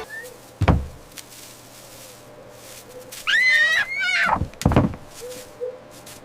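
Cartoon sound effects: a dull thud, then a high squeaky call that bends up and down for about a second, then two thuds in quick succession.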